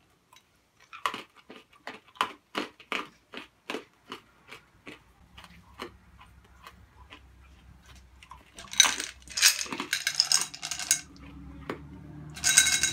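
Warheads hard sour candies being eaten: sharp clicks about twice a second as the candies knock against the teeth, then denser crackling bursts later on.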